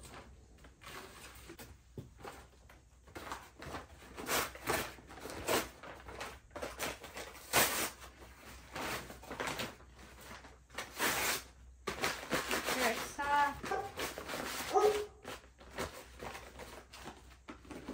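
Rustling and scraping of potting soil and planting materials being handled by hand, in a string of short, irregular bursts. Near the end come a few short voice-like sounds.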